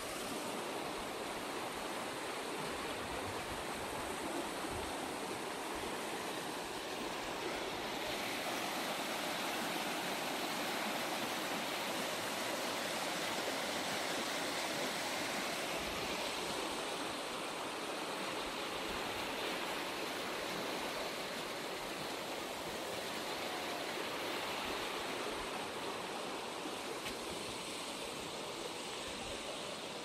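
Fast river water rushing and churning over rapids around the stumps of old bridge piles: a steady, even rush of white water.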